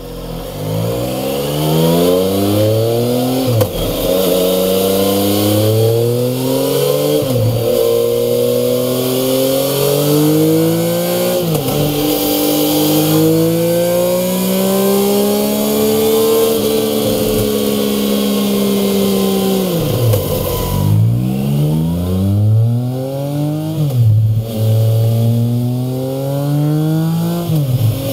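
2016 Triumph Speed Triple's 1050 cc inline three-cylinder engine revving on a dyno, rising in pitch and dropping back several times, with one longer climb near the middle. It runs first through the stock silencers and, in the later part, through Mivv Ghibli 2 slip-on silencers.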